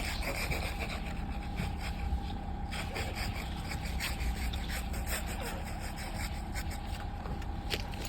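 Snow crunching and scraping in a steady, irregular rasp, with wind rumbling on the microphone underneath.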